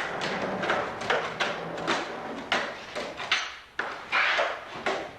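Skateboards on a garage floor: a run of sharp clacks and thuds from boards popping and landing, with the scraping rush of wheels rolling in between.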